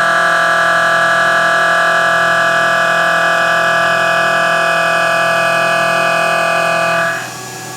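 1.5-inch face mill with carbide inserts cutting metal on a mill at around 2,500 RPM: a steady singing whine made of many even tones. About seven seconds in it drops away suddenly, leaving a quieter machine hum.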